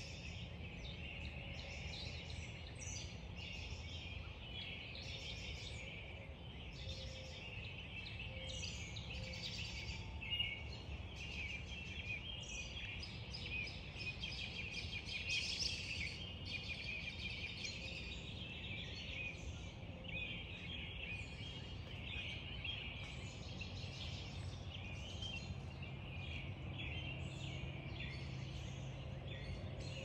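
Dawn chorus: several songbirds singing and calling over one another without a break, over a steady low rumble.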